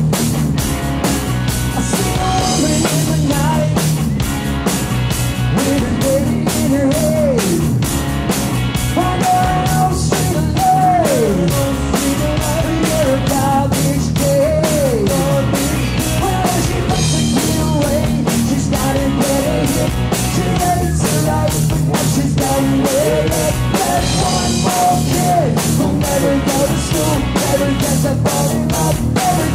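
Live rock band playing: electric guitar, bass guitar and drum kit at a steady fast beat, with a man singing lead vocals.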